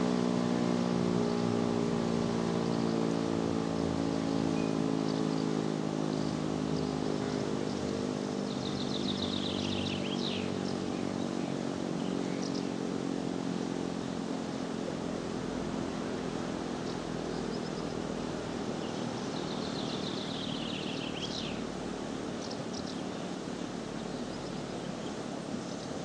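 E57 electromechanical air-raid siren winding down after its test signal: its tone slides slowly lower and fades away over the first ten seconds or so. A river rushes steadily underneath. A bird sings twice, about nine and twenty seconds in.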